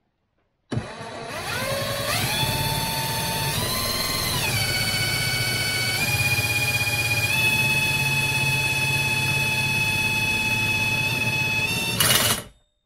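Impact gun spinning an Austin Mini alternator on the bench: a whine that climbs in pitch as it spins up, dips and rises again, then holds steady at speed, with a brief harsh burst near the end as it stops. The alternator is turning fast enough to charge.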